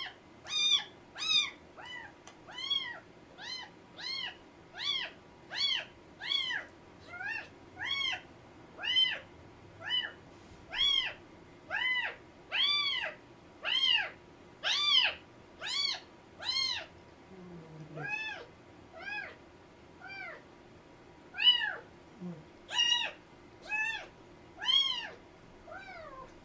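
A kitten of about one month mewing over and over, high-pitched cries that each rise and fall in pitch, roughly one or two a second, with a short lull about two thirds of the way through.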